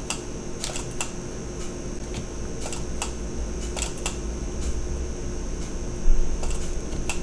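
Scattered clicks of a computer mouse and keyboard at irregular spacing, over a steady background hum, with one louder thump about six seconds in.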